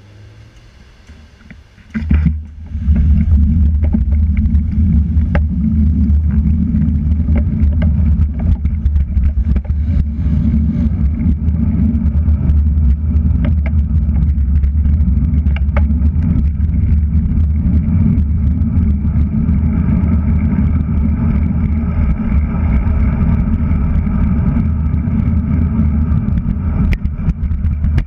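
Wind buffeting a GoPro Hero3+ action camera's microphone on a moving road bike: faint street sound for about two seconds, then a sudden loud, steady low rumble as the bike gets up to speed, with a few faint knocks.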